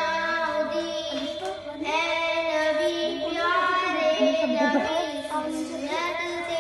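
A young girl singing a naat, a devotional song in praise of the Prophet, in a flowing melodic line, over a steady held tone.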